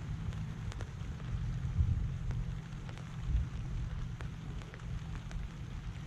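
Light rain beginning to fall: scattered single raindrops ticking at irregular moments over a steady low rumble.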